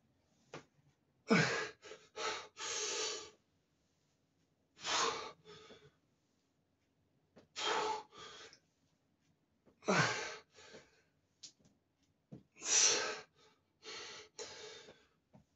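A man breathing hard after a set of weighted leg exercise: heavy, gusty breaths in and out, coming in clusters every two to three seconds with short quiet gaps between, as he recovers from the exertion.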